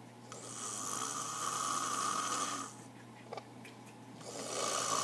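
A man snoring: one long snore in the first half, and the next one beginning near the end, with a quiet gap between.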